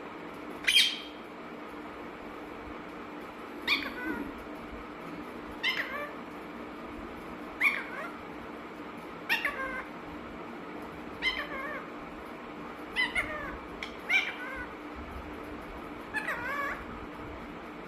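Talking Alexandrine parakeet giving nine short, cat-like calls with bending pitch, one every two seconds or so, over a faint steady hum.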